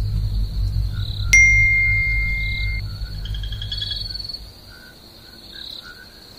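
A smartphone notification chime: a sharp click about a second in, then a single clear tone held for about a second and a half. Under it, a low rumble fades away and faint cricket-like chirps go on.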